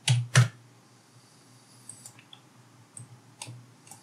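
Computer keyboard keys pressed: two sharp strokes in quick succession at the start, then a few faint clicks spread over the next few seconds.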